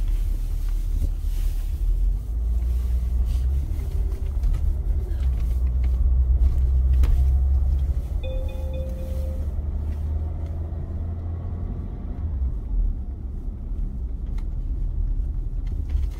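Hyundai Veracruz SUV driving slowly, heard from inside the cabin as a steady low engine and road rumble.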